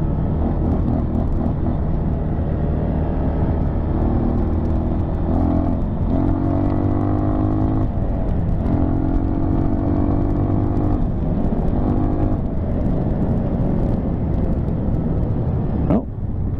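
Dirt bike engine running under way on a sandy trail, its pitch stepping up and down with the throttle, and easing off briefly near the end.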